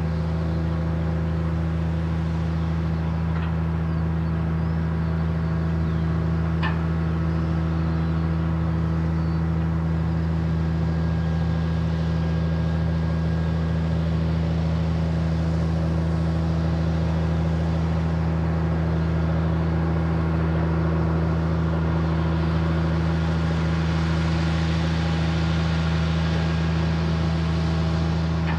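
Liebherr LTM 1500-8.1 mobile crane's six-cylinder diesel superstructure engine running at a steady, unchanging pitch while it powers the hydraulics that luff the lattice jib upward.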